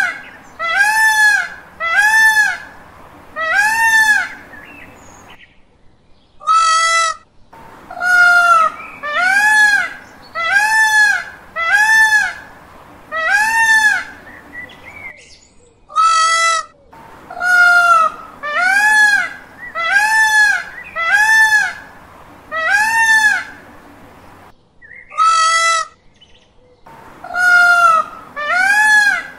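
Peacock (Indian peafowl) calling: loud calls that each rise and fall in pitch, repeated about once a second in runs of six or seven. Each run is broken by a pause and a single shorter, harsher call.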